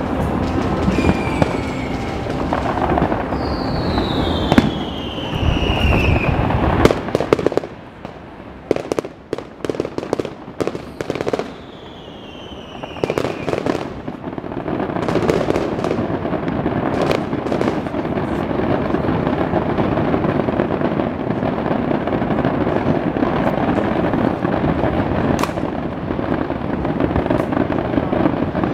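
Fireworks display: a dense run of bangs and crackling, with falling whistles near the start, about four seconds in and about twelve seconds in. The bangs thin out to separate sharp reports for a few seconds, then the crackle becomes dense and continuous again from about fifteen seconds in.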